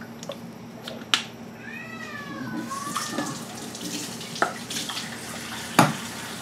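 A cat meows once, a drawn-out call that falls and then rises in pitch. About two and a half seconds in, water starts running from a tap, with a few sharp knocks, the loudest near the end.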